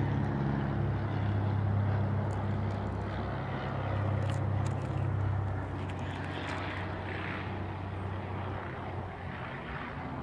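Camera drone's propellers humming steadily in flight, a low hum with a hiss of air over it that eases somewhat in the second half.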